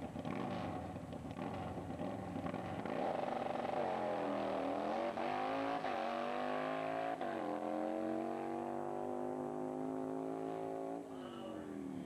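Drag-racing motorcycle engine launching off the start line and accelerating down the strip. Its pitch drops and climbs again three times as it shifts up through the gears, then falls away about eleven seconds in as the rider backs off the throttle after the finish.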